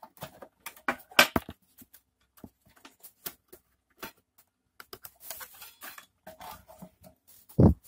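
Irregular light clicks and taps as a small metal tool pokes cut-out waste pieces loose from a thin plywood fretwork panel, with some scraping as the panel is handled. A single dull thump near the end.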